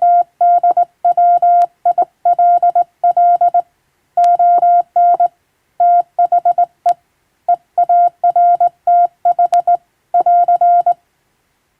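Morse code sent by hand on a straight key: a single steady tone keyed on and off in dots and dashes, grouped into letters and words, with a few sharp clicks among them. The keying stops near the end.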